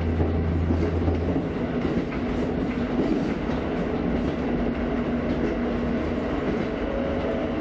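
KiHa 54 diesel railcar running along the track, heard from inside its cab: a steady rumble of wheels on rail with scattered clicks. A low hum stops about a second and a half in.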